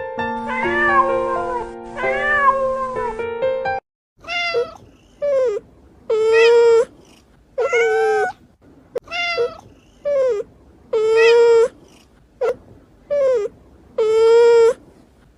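Music with steady held notes for the first few seconds, then a cat meowing about ten times in a row, each meow short and separate.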